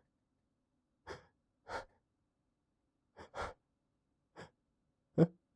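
A man's short, sharp catching breaths and gasps, about six in all, spaced irregularly, the loudest and voiced one near the end: the hitching inhalations of a sneeze building up while he tries to hold it back.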